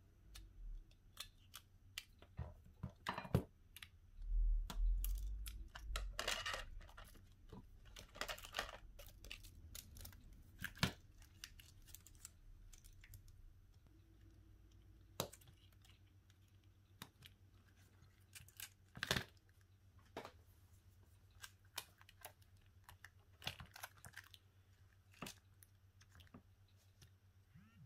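Irregular clicks, taps and scraping as small tools and parts are handled while a Xiaomi Redmi 8A smartphone is worked on for an LCD replacement. There are a few longer rasping scrapes and some dull thuds in the first third.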